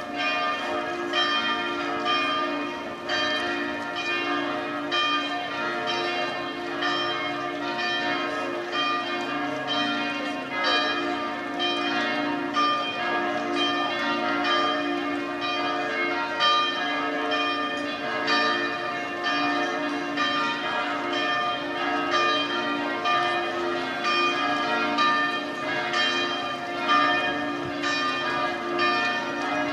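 The bells of Amalfi Cathedral's bell tower ringing a full festive peal (plenum): several bells sounding together in a steady stream of overlapping, irregular strokes, their tones humming on between strikes.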